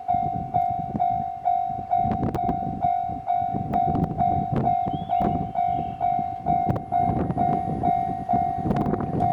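Japanese railway level-crossing warning bell ringing steadily, about two strikes a second, as a train runs past, its wheels rumbling and clacking over the rail joints from about two seconds in.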